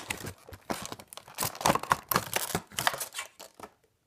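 Clear plastic packaging and a cardboard window box crinkling and crackling in quick irregular crackles as a boxed collectible figure is slid out, stopping shortly before the end.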